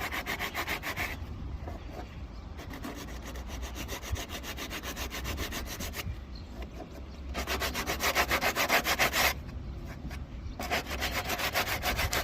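Hand sanding of a car's bodywork, blending rough, previously filled patches back into the paintwork. The back-and-forth rubbing strokes come at an even rhythm, louder for a couple of seconds past the middle and again near the end.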